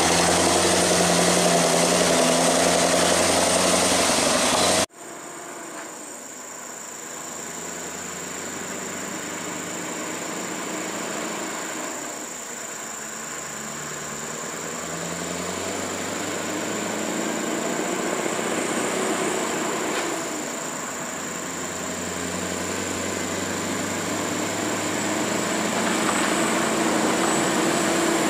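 Scania R580's V8 diesel engine running close by as the truck pulls a trailer loaded with an excavator. About five seconds in, the sound cuts abruptly to the same truck farther off, its engine growing louder as it approaches, with a steady high-pitched whine in the background.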